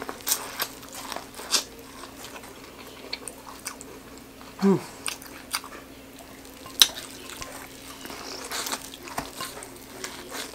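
Close-miked biting and chewing of boiled corn on the cob: scattered sharp clicks and pops of kernels bursting and wet mouth sounds, with one louder snap about two-thirds of the way through.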